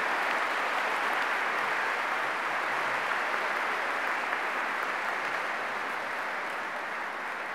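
Audience applauding after a speech, the clapping slowly dying down.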